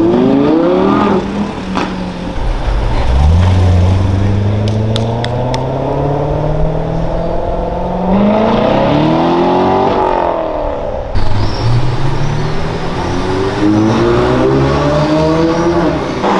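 Supercar engine accelerating hard through the gears. The pitch climbs and then drops back at each upshift, several times over, with a few sharp crackles partway through.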